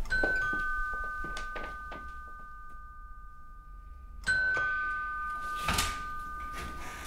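Two-tone doorbell chime, ding-dong: a high tone then a lower one, left ringing. The bell is rung twice, the second time about four seconds in, and a thump follows shortly after.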